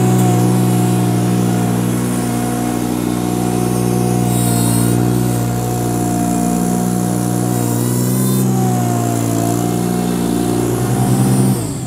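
Ventrac compact tractor's engine running steadily as it pushes slush with a front leaf plow. Its pitch dips about eight seconds in and comes back up near the end.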